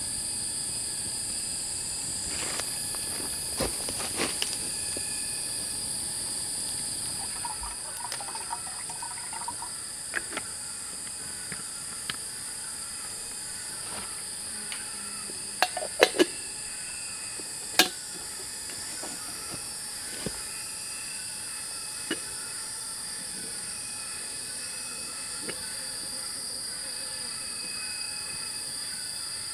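Insects droning steadily at a high pitch, with a short falling chirp repeating in the background and scattered sharp knocks, the loudest a cluster about halfway through.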